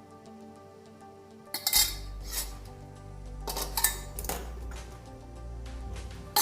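Metal kitchen utensils clinking against a cup or pan while the kadha is strained. There are a few sharp clinks from about a second and a half in, over soft background music.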